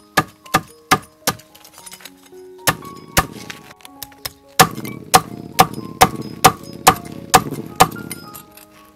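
Cleaver chopping through crispy fried pork belly on a wooden chopping board: sharp chops about two a second, pausing briefly after the first four, with the crackling skin crunching under the blade.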